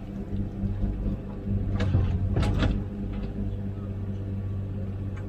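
Komatsu PC16 mini excavator's diesel engine running steadily, with a few sharp knocks about two to three seconds in.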